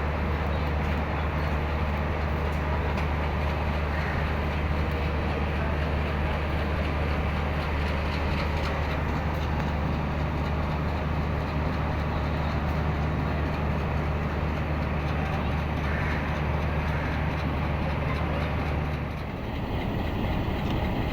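Japanese-built HBU-20 diesel-electric locomotive idling with a steady low hum; the hum cuts off abruptly about two seconds before the end.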